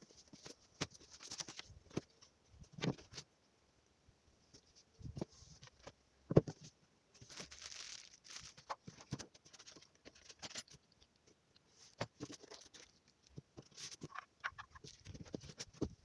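A cardboard box being opened and unpacked: scattered rustling, tearing and scraping of packaging, with light knocks as contents are handled and one sharper knock about six seconds in.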